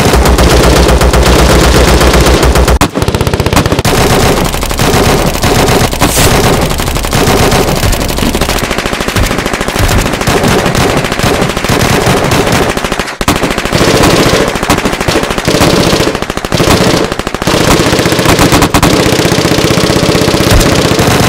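Sustained automatic gunfire in a battle: many rapid shots overlapping in long bursts, with only brief let-ups.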